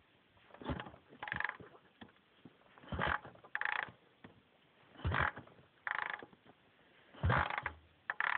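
Dnepr MT-10 boxer twin being kicked over four times without firing: each kick gives a heavy thump as the engine turns over, then a short creaking rattle as the kickstart lever springs back.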